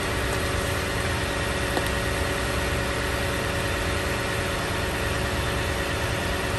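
Minivan engine idling steadily with the bonnet open, running on a newly fitted battery, with a faint click about two seconds in.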